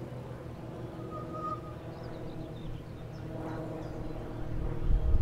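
Steady low engine drone with a few faint bird chirps, and a louder low rumble near the end.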